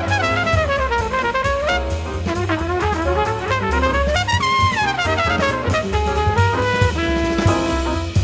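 Instrumental jazz-style background music with a brass melody over bass and drum kit.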